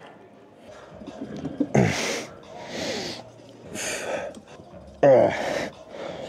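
A man breathing hard and grunting with the effort of lying leg curl reps: forceful exhales and gasps about once a second, two of them voiced grunts that drop in pitch.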